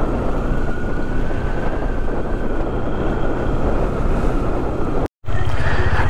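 Bajaj Dominar 400's single-cylinder engine running steadily while riding along a road. The sound cuts off sharply for a moment about five seconds in.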